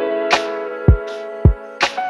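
Background music with a drum beat of kick and snare hits under held chords.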